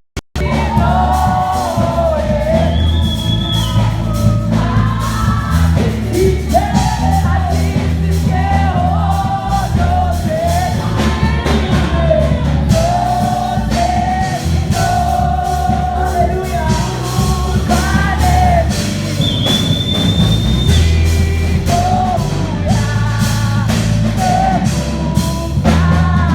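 Music with singing over a steady, heavy bass line.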